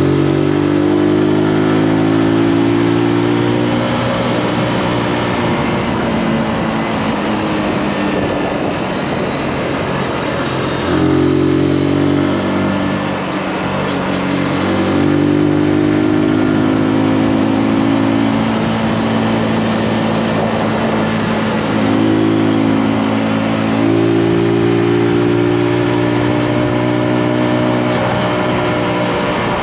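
Zontes G155's single-cylinder four-stroke engine running under the rider's throttle on a winding road. It pulls harder and eases off several times, the note stepping up and dropping back through the bends, over a steady rush of wind.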